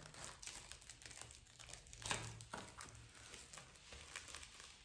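Small clear plastic bag crinkling in the hands as its sealed top is picked at to open it: a run of faint crackles, a little louder about two seconds in.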